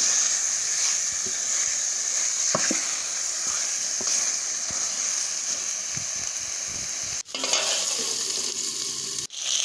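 Chicken frying in oil with spices, tomato paste and soy sauce in a cooking pot, sizzling steadily, with a few faint knocks from stirring. The sound drops out for an instant twice near the end.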